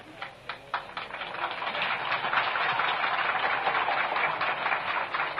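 Crowd applauding: a few scattered claps that swell into steady clapping about a second in, then begin to thin out near the end.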